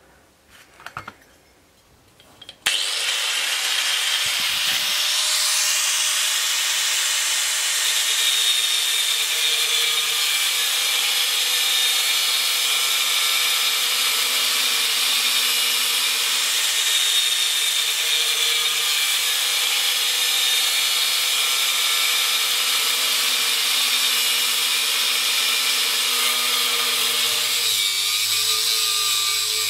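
Angle grinder with a thin cutting disc cutting into a steel bar to rough out a knife blade: a loud, steady grinding whine that starts suddenly about two and a half seconds in, after a few faint clicks.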